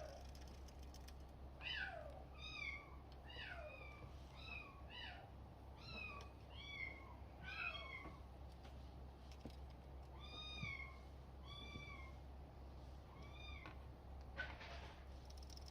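Bengal kitten mewing over and over in short, high-pitched cries, the early ones sliding down in pitch. The cries come quickly, about two a second, through the first half, then grow sparser, with a last one near the end.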